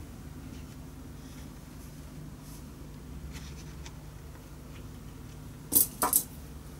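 Small metal clamps clinking against each other twice in quick succession as they are picked up off the workbench, over faint handling sounds and a low steady hum.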